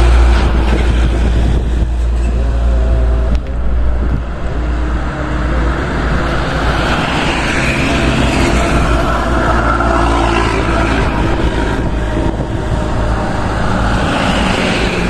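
Diesel trucks passing close by on a highway, with engine and tyre noise. A heavy truck's low rumble is loudest at the start and fades as it pulls away. Engine noise swells again as a Hino truck and a motorcycle approach, and once more as a light truck passes near the end.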